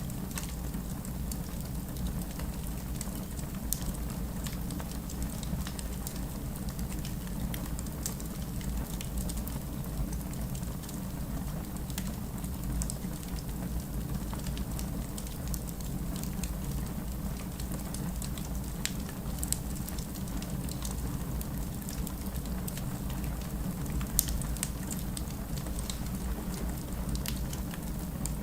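Wood fire crackling: a steady low rumble from the flames with scattered sharp pops and snaps, one louder pop about three-quarters of the way through.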